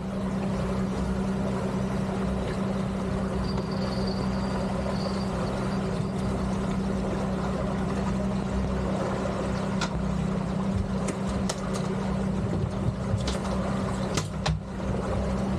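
Twin Suzuki 250 four-stroke V6 outboard motors running steadily under way, with water rushing past the hull. A few sharp clicks sound over them in the last few seconds.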